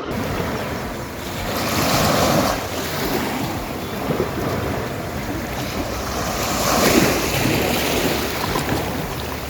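Sea waves washing onto the beach, swelling louder twice, with wind buffeting the microphone.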